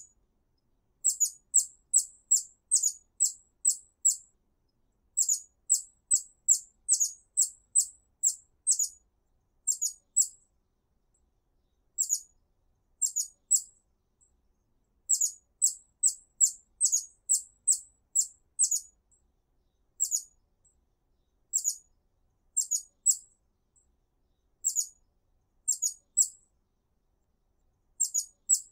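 Hummingbird giving high, thin chip notes in quick runs of about three a second, several notes per run, with short pauses of a second or two between runs.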